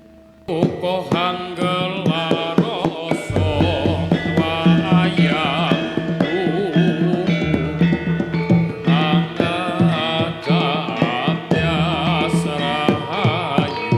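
Javanese gamelan music, the opening gending of a topeng mask dance: kendang hand drums beating under the melody of the bronze metallophones and gongs. The full ensemble comes in loudly about half a second in.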